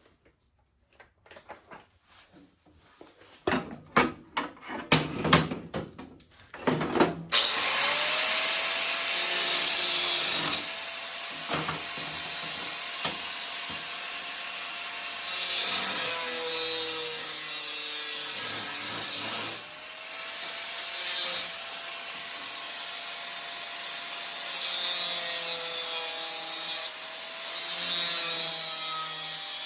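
A few seconds of knocks and clatter, then a handheld power cutting tool starts and cuts into the engine guard to trim clearance for the starter. Its whine dips repeatedly under load, stops briefly about two-thirds of the way through, and starts again.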